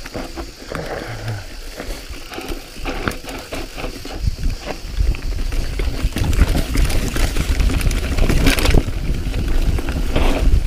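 Mountain bike riding fast down a rough dirt trail: tyres rolling over dirt and rocks, with many short clatters and knocks from the bike and low wind rumble on the microphone. It gets louder about halfway through as the bike speeds up.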